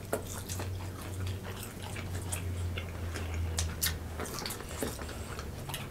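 People chewing and biting into fried chicken wings: a scatter of small wet clicks and crunches, over a steady low hum.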